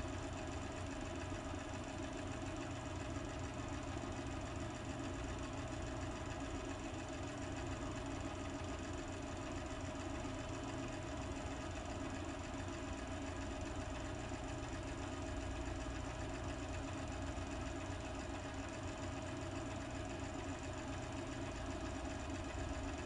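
Steady machine hum with a constant whine, unchanging throughout.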